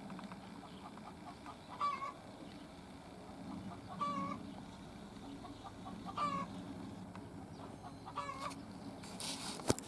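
Domestic goose honking, four short calls about two seconds apart. A sharp click near the end.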